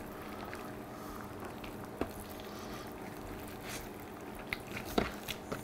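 Hands rolling a raw stuffed flank steak on a wooden cutting board: faint soft squishing of the meat, with a few light taps about two seconds in and near the end, over a steady low room hum.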